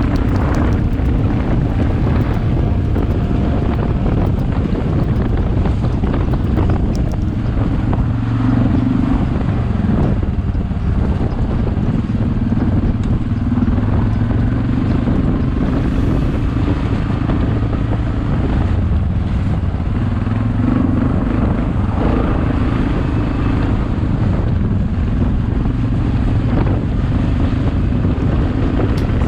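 ATV (quad bike) engine running steadily while riding, with wind noise on the microphone.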